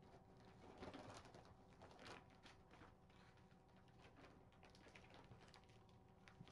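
Near silence: room tone with faint scattered rustles and light clicks, the sound of paper and small things being handled, a little louder about a second and two seconds in.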